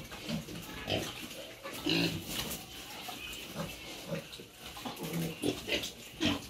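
Pigs grunting in the pen, short separate grunts about once a second.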